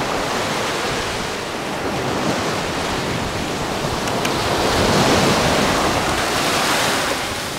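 Shallow surf washing up over a sandy beach, a steady rushing wash that swells for a few seconds about halfway through.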